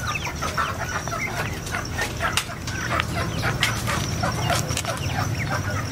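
Young chickens cheeping and clucking in many quick, short calls, with a few sharp taps among them.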